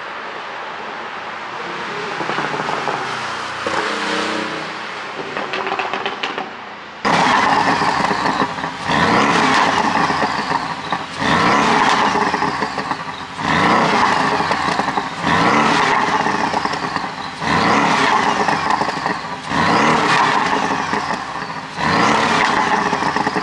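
Porsche 718 Boxster S turbocharged 2.5-litre flat-four being revved in repeated blips, about one every two seconds from some seven seconds in, with pops and crackles on the overrun as the revs fall after each blip. The pops come from the exhaust pop-sound ECU tune.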